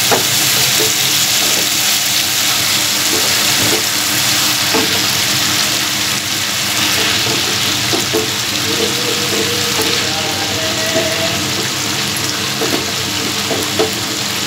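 Masala paste of tomato, chilli and ginger with spices frying in oil in a pan, sizzling and bubbling steadily, with a few light clicks.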